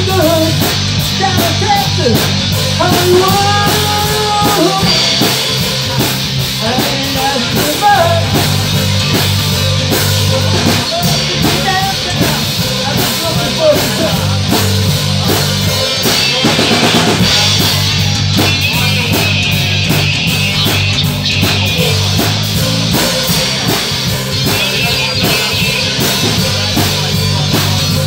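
Live rock band playing loudly: electric guitars and a drum kit with cymbals, with a man singing lead vocals, mostly in the first several seconds.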